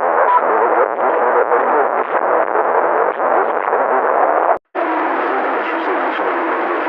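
Sound effect from a TV rating-card jingle: a dense, gong-like electronic wash with echo. It cuts out suddenly about four and a half seconds in, then starts again.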